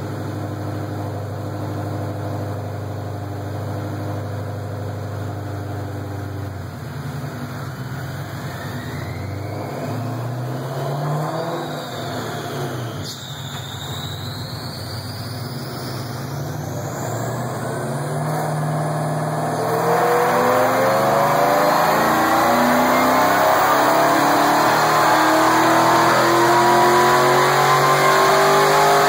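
Supercharged 4.6-litre V8 of a 2005 Roush Mustang on a dyno: steady running at first, then blips and revving with a high whine rising and falling, then about two-thirds through a loud, long pull with the pitch climbing steadily to the end.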